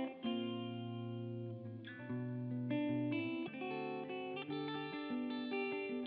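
Background music: a melody of plucked guitar notes.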